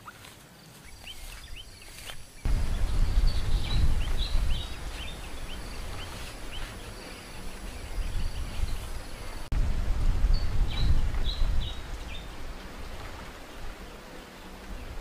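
Gusty wind buffeting the microphone, a heavy, uneven low rumble that sets in about two seconds in, with small birds chirping in quick repeated calls over it.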